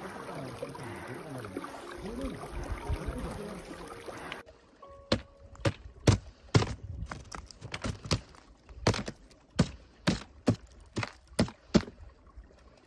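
A steady rushing noise, like wind on the microphone, for about four seconds. It cuts to a hiker's footsteps: sharp crunches and taps on snow, ice and rock at an uneven walking pace.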